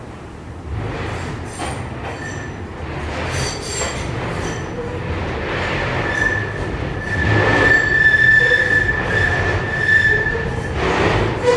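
Ganz-Mávag M1 metro railcar running, heard from inside the car: a steady running rumble, and about six seconds in a high steady wheel squeal sets in and gets louder.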